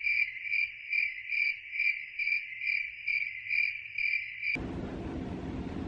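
Cricket chirping: one steady high-pitched trill that pulses about three times a second, cut off abruptly near the end and followed by a steady hiss.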